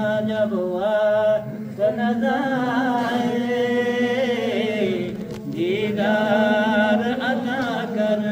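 A man singing an Urdu naat without instruments, in long held notes that slide and waver with ornaments. He breaks off briefly about five seconds in, then comes back in on a rising note.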